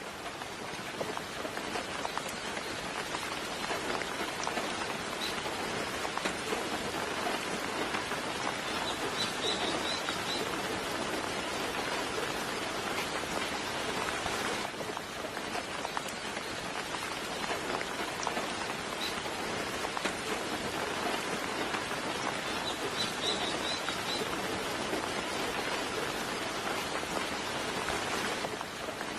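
Steady rain falling and pattering on a surface, with short bursts of high bird chirps twice, about nine and twenty-three seconds in.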